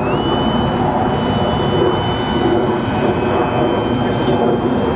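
Electric motor of a radio-controlled model airplane running with a steady high whine that rises slightly at the start and then holds, over heavy wind noise on the microphone.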